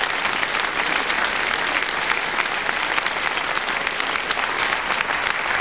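Theatre audience applauding: steady, dense clapping from many hands.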